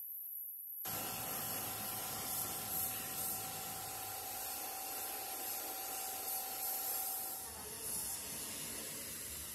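Compressed-air paint spray gun with a top-mounted gravity cup, spraying paint in a steady hiss that starts abruptly about a second in. A few faint steady tones run over the hiss and stop shortly before the end.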